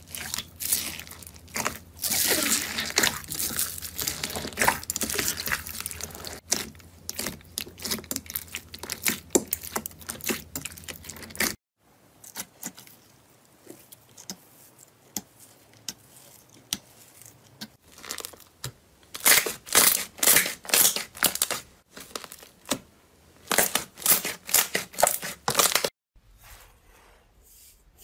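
Slime being squeezed and kneaded by hand. For the first part a slime packed with foam beads crackles and crunches densely. After a sudden break, a glossy glitter slime being poked and pulled gives sparse clicks, then loud clusters of sticky clicks and pops.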